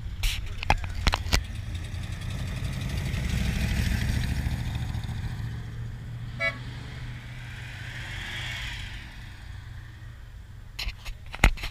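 Car engines rumbling low, with one brief car-horn toot about six and a half seconds in. A few sharp knocks come just after the start and a cluster more near the end.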